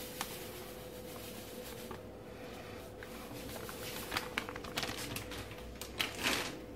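Breadcrumbs pouring from a plastic bag into a bowl of ground meat, then light rustles and small clicks as the bag is handled, around four to six and a half seconds in. A faint steady hum runs underneath.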